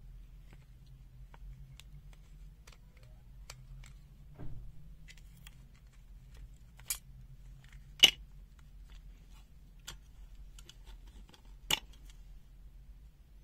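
Plastic multimeter case being pried apart: scattered small clicks with a dull knock about four and a half seconds in and three sharp snaps in the second half, the loudest about eight seconds in, over a faint low hum.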